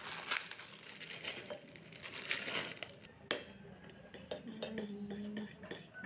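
A metal utensil clinking and knocking against a stainless steel cooking pot, with one sharp knock about halfway through, while instant noodles are cooked. A short low steady tone sounds near the end.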